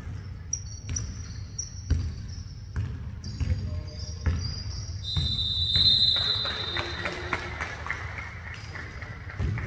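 Basketball bouncing on a hard court at irregular intervals, about once a second, with sneakers squeaking in high, drawn-out squeals that are loudest around the middle.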